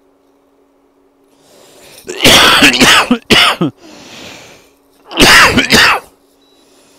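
A person coughing in two loud fits, the first about two seconds in with a short extra cough at its end, the second about five seconds in.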